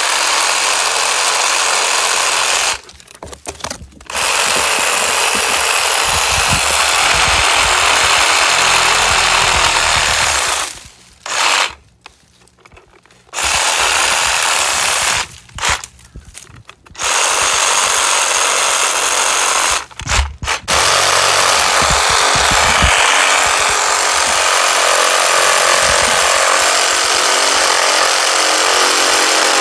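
Hyper Tough 20-volt cordless reciprocating saw cutting through tree limbs, its blade running in long stretches and stopping briefly four times.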